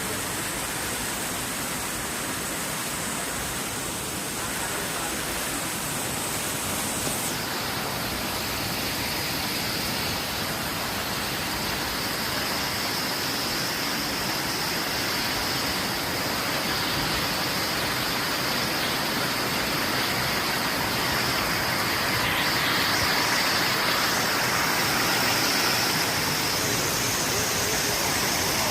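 Waterfall rushing: a steady wash of falling water that grows slightly louder over the stretch.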